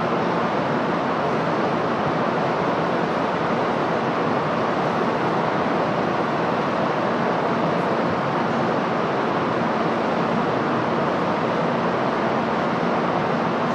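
Steady rushing background noise of an underground railway station platform with a faint low hum underneath, unchanging throughout.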